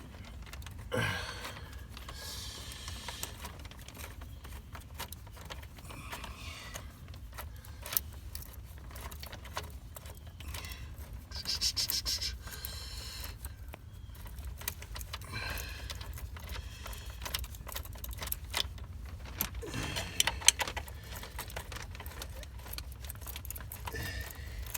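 Metal hand tools clinking, clicking and scraping against the EGR valve's bolts as they are worked loose, with a brighter rattle about twelve seconds in. A low steady rumble sits underneath.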